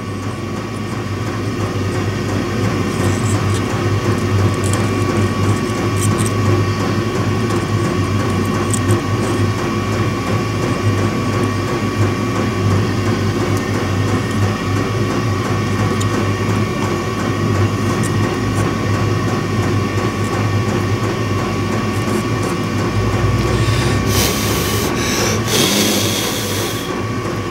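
Steady low machine hum with a thin steady whine above it, and two short bursts of hiss near the end.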